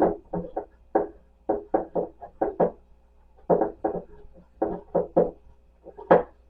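Irregular knocks and clunks of microphone stand parts being handled and fitted together, about two or three a second, with one louder knock near the end.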